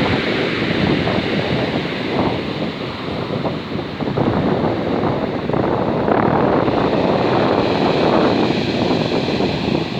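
Strong wind buffeting the microphone over waves washing in on a pebble beach.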